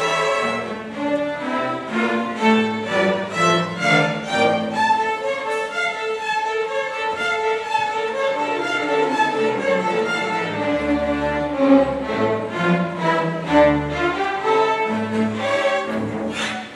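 School string orchestra playing: violins over cellos and double basses, in short, rhythmic bowed notes, with deep bass notes joining in the second half.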